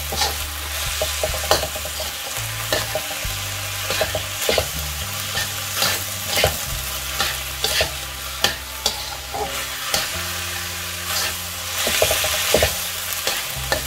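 Ground-meat bun filling sizzling in a wok while a metal slotted spatula stirs it, scraping and clicking irregularly against the pan. The sauce is being thickened with cornstarch slurry.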